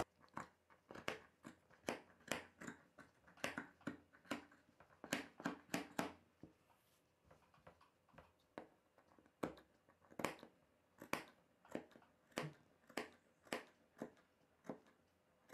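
Tailor's shears snipping away the excess fabric along a stitched blouse neckline: a long run of faint, short, crisp snips, about one or two a second, with a pause of a couple of seconds midway.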